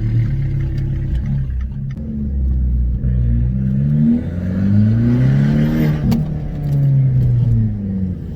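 Abarth 595's turbocharged 1.4-litre four-cylinder through its Monza exhaust with a 200-cell sports cat, pulling away: the revs climb, drop briefly at a gear change, and climb again, then ease off after a sharp click about six seconds in.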